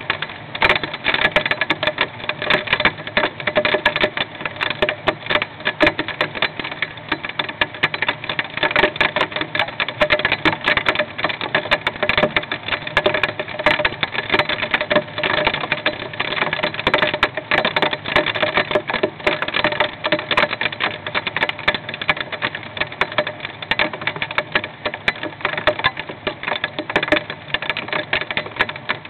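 Hail hitting a nest box, heard from inside the box: a dense, steady clatter of rapid small impacts.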